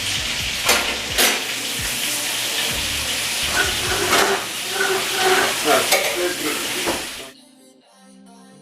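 Meatballs frying and sizzling in a pan, with a few sharp clicks of a utensil against the pan. The sizzle cuts off abruptly near the end, giving way to quiet background music.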